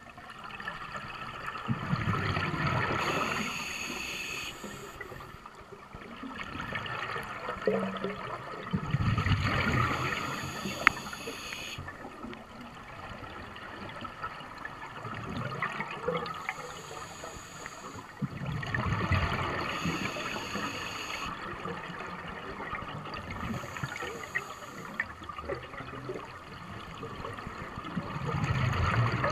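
Underwater sound of a scuba diver breathing through a regulator: loud bubbling bursts of exhaled air every nine seconds or so, each lasting two to three seconds, over a steady low water hiss.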